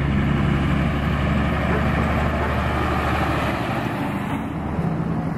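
Kenworth T880 truck's Cummins diesel engine running with a steady low drone, its note dipping slightly about four seconds in before settling again.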